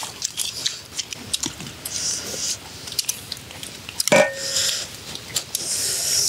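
Close-up eating sounds: a person chewing a crunchy salad of cow stomach and banana stem, with many small irregular clicks and wet smacks. A metal spoon clinks once against a ceramic bowl about four seconds in, ringing briefly.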